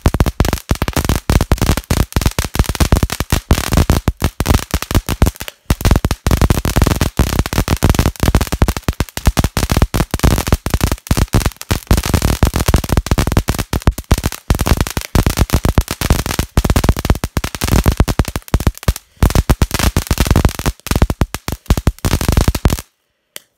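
A small Pyro Cola firework fountain burning, giving a dense, rapid crackling of sharp pops as it sprays sparks. It cuts off suddenly near the end as the fountain burns out.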